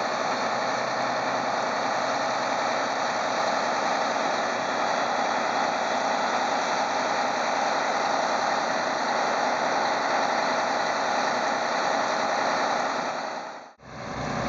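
Concrete boom pump truck's engine running steadily as it pumps concrete into the foundation forms. The sound drops out briefly near the end.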